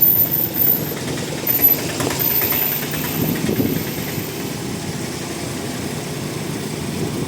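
Small motorcycle or scooter engine running steadily at low revs, with a few louder knocks in the first two seconds.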